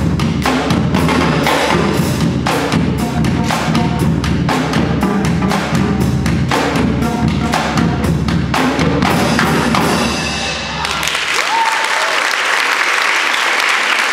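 Marching drumline of snare drum, tenor drums and tuned bass drums playing a fast, dense cadence that ends about eleven seconds in. Audience applause follows.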